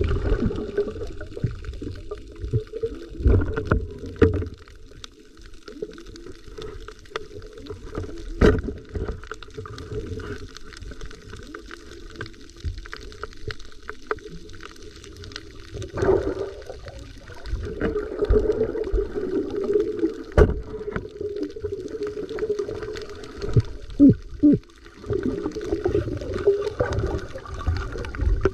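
Underwater sound picked up by a camera in a waterproof housing during a dive: a steady muffled water noise with low rumbling, broken by scattered sharp knocks and clicks.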